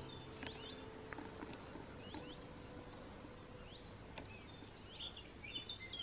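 Wild birds singing: scattered short, high chirps and falling whistles that grow busier near the end, over a faint steady background hiss.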